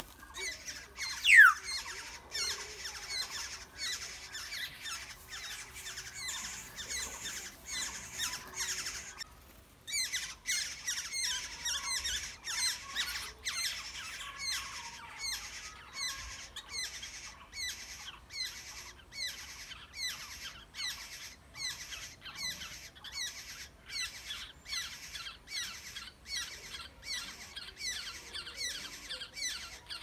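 Black-hooded oriole nestlings begging from the nest: a steady run of short, high, shrill calls at about two to three a second, with a brief pause near ten seconds in. About a second and a half in, one loud falling note sounds over them as the adult arrives.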